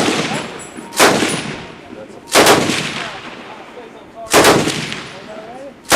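Loud gunshots, one every second or two, each followed by a long echoing decay.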